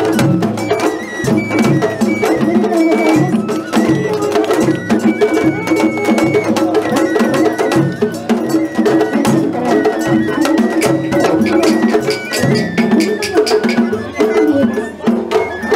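Japanese festival-float hayashi music: a high bamboo-flute melody of held, stepping notes over fast, steady strokes on a small tight-headed shime-daiko and beats on a large taiko drum.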